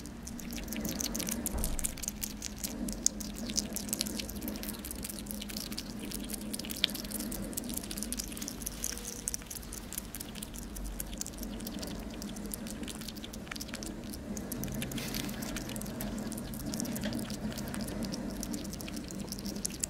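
African pygmy hedgehog chewing mealworms, a rapid, irregular run of small wet crunching clicks, over a steady low hum.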